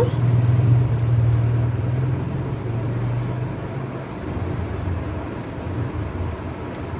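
A low, steady motor hum that weakens and drops slightly in pitch about three and a half seconds in, fading gradually.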